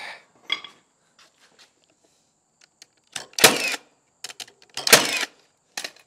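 Framing nail gun firing twice, driving two ring-shank nails into a built-up wooden header, the shots about a second and a half apart, with a few light clicks of the tool being handled.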